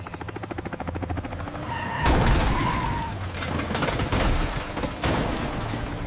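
Cartoon helicopter rotor chopping rapidly and evenly, then about two seconds in a sudden loud rumbling crash-like sound effect takes over and carries on.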